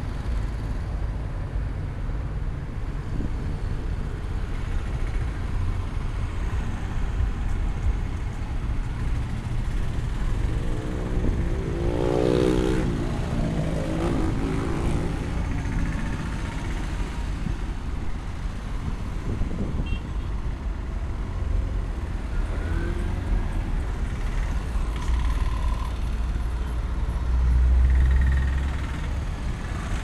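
Road traffic passing: a steady rumble of vehicles, with one engine's pitch rising and falling about halfway through, and a heavy vehicle passing close near the end, the loudest moment.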